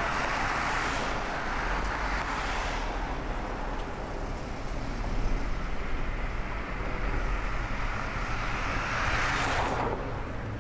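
Road traffic: cars and vans driving past with engine and tyre noise over a steady low rumble. The noise swells as a vehicle passes near the start and again near the end.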